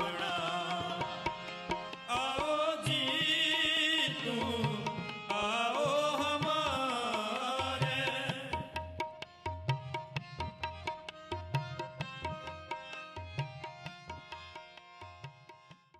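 Sikh shabad kirtan: a male raagi sings a hymn over tabla and harmonium. The singing stops about eight seconds in, and the tabla and harmonium play on, fading out near the end.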